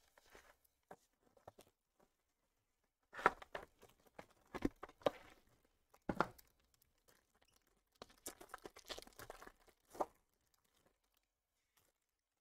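Shrink wrap and a foil trading-card pack wrapper being torn open and crinkled by hand, in several short bursts of tearing and crinkling with quiet gaps between.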